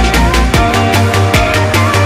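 Background music: a fast electronic track with deep bass and a quick, steady drum beat.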